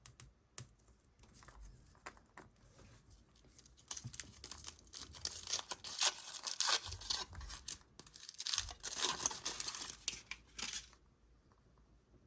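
Surprise-egg packaging being torn and crinkled open by hand: a few light clicks and rustles, then two long stretches of crackly tearing about four seconds in and again just before the end.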